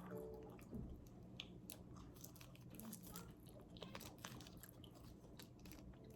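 A person chewing food close to the microphone, faint, with scattered small mouth clicks.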